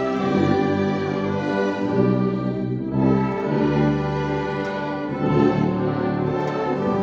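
Church orchestra of brass and strings playing a slow hymn in sustained chords, with a Parrot tuba playing the bass line.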